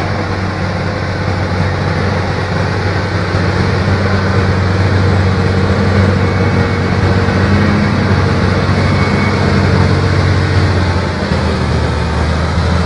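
Fendt tractor's diesel engine working hard under heavy load, pulling a mounted plough through deep soil: a steady low drone that swells a little toward the middle and dips briefly near the end.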